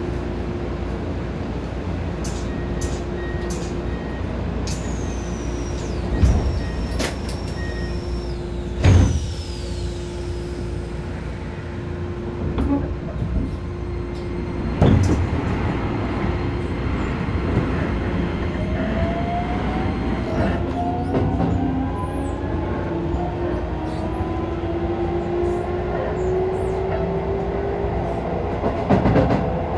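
Running sound inside a Keisei 3000 series electric train: a steady hum with a few loud knocks in the first half. From a little past halfway, several whining tones rise together in pitch as the traction motors' inverter drive accelerates the train.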